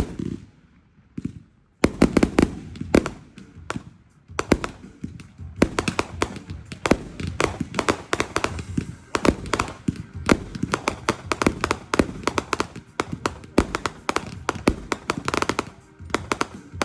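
Fireworks going off: a rapid, irregular string of sharp cracks and pops. After a brief lull near the start, the cracks run almost without a break.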